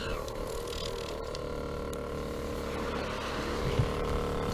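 A motor running steadily with an even hum and a low rumble underneath.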